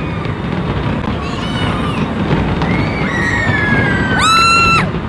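Large fireworks display with crowd noise. About four seconds in, a loud, high, whistle-like tone sweeps up, holds for about half a second and drops away.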